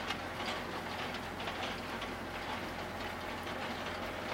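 Ursus C-392 tractor's diesel engine running steadily under load while a Strumyk 2.4 disc harrow cuts stubble behind it. The discs working through soil and straw make a dense, continuous crackling rattle over the engine's low steady hum.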